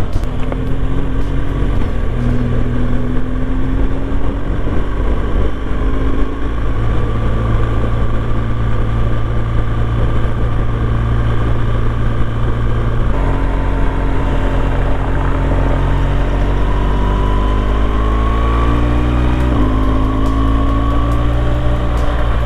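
Motorcycle's boxer-twin engine, a BMW R1200GS Adventure, heard through a helmet microphone while riding: the engine note rises steadily and drops suddenly at each upshift, several times, over a rush of wind noise.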